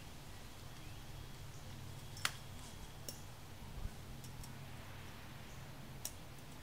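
Scattered sharp clicks and knocks of tent frame poles being handled and fitted together, the sharpest about two seconds in, over a low steady hum.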